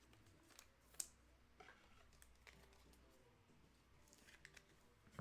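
Near silence with a few faint, short clicks and taps, the sharpest about a second in.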